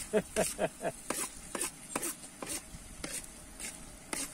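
Metal spatula knocking and scraping in a pan, chopping and stirring minced meat for tantuni: a quick, uneven run of knocks, about three a second and faster at first.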